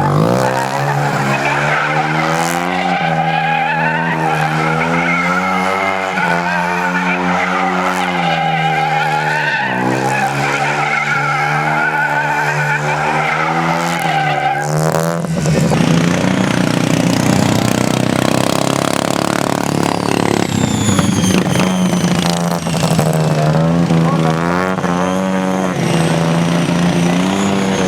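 Single-rotor Mazda rotary engine of a racing lawn mower running hard, its pitch rising and falling with the throttle. About halfway through the note turns rough and noisy for several seconds, then settles back.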